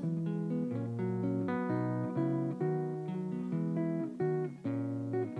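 Solo guitar with no singing, plucking a melody of separate notes and short chords over a lower bass line.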